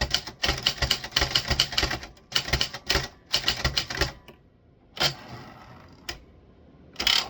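Typewriter keys struck in quick runs of clacks, about eight to ten a second, which stop about four seconds in. A few separate clacks follow, spaced about a second apart.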